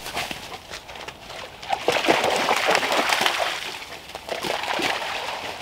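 A dog splashing through a shallow creek, its feet sloshing in the water. The splashing is loudest about two to three seconds in, eases off, then comes again near the end.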